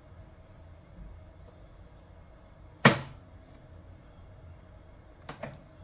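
Handling clicks from rethreading a Brother SE625 embroidery machine for the next thread colour. One sharp, loud click about three seconds in, then a few lighter clicks near the end. The machine is not stitching.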